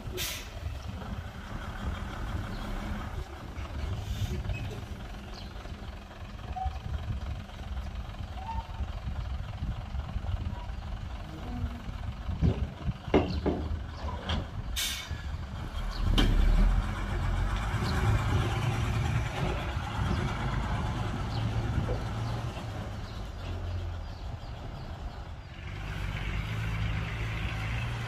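Diesel engines of a dump truck and bulldozer running at work. A few knocks come about thirteen seconds in, then a short, sharp air-brake hiss, and the engine noise grows louder from about sixteen seconds.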